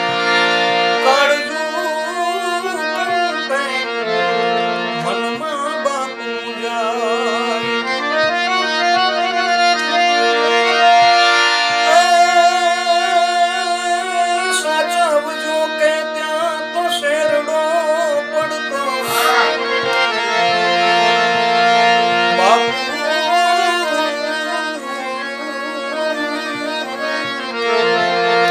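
Instrumental interlude in Gujarati folk style. A harmonium holds a steady drone while a gliding, ornamented melody with vibrato is played on the keyboard above it.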